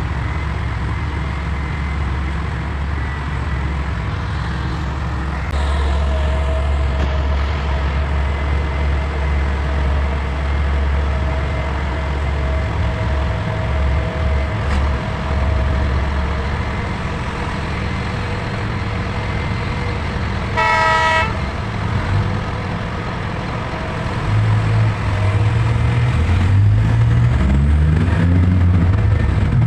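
Heavy diesel engines of a mining excavator and haul truck running steadily, with a short horn blast about two-thirds of the way through. Near the end an engine revs up, its pitch rising.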